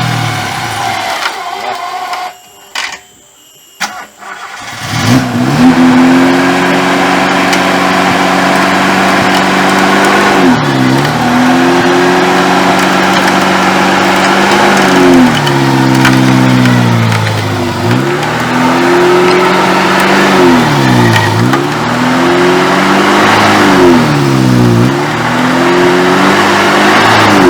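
Car engine under way off-road, revving, easing off and climbing again several times. It drops away for about three seconds near the start, with a couple of clicks, then comes back revving.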